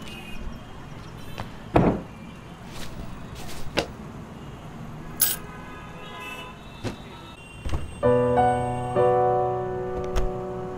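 Scattered knocks and thuds of footsteps and a door, then soft held music chords come in about eight seconds in.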